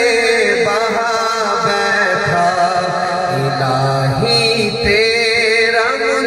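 A naat, an Urdu devotional poem, sung by a solo voice with long melismatic phrases, no instruments, over a steady held drone.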